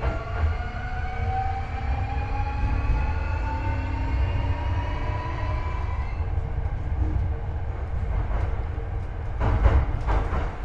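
Hankyu 8300 series electric train accelerating: its Toyo IGBT-VVVF inverter and traction motors whine in several tones that climb steadily in pitch, then fade out about six seconds in. Under this runs the low rumble of the bogie on the rails, with a cluster of sharp wheel clicks near the end. The uploader notes an unusually high modulation sound from this car.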